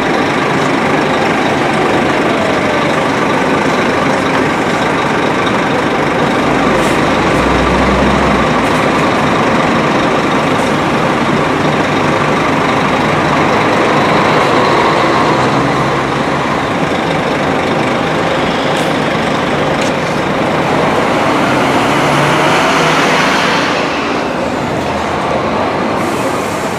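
Scania double-decker coach with a Marcopolo Paradiso 1800DD G7 body on the move. Its engine and road noise run loud and steady, the engine pitch glides twice, and the noise drops off a few seconds before the end.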